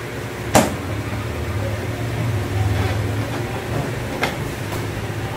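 Power cord plug being pushed into the printer's power socket, with a sharp click about half a second in and a lighter click a little after four seconds, over a steady low hum.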